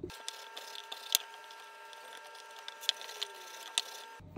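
Wooden rolling pin rolling out a thin sheet of baklava dough on a wooden board, heard faintly: a few sharp wooden clicks, the loudest about a second in, over a faint steady hum.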